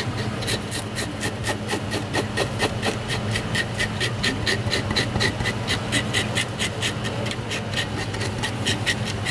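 Metal-toothed fish scaler scraping the scales off a red grouper in quick, even strokes, about four a second, over a steady low hum.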